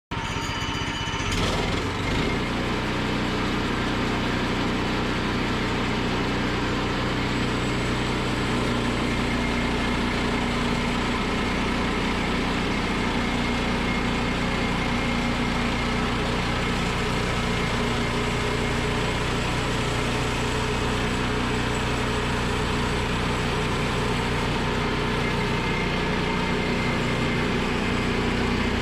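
Woodland Mills portable bandsaw mill's small gasoline engine running steadily.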